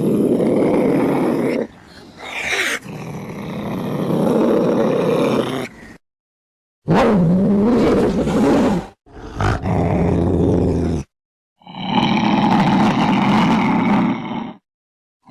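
Loud growls and roars of cats, in about five separate clips cut one after another, each stopping abruptly into silence before the next begins.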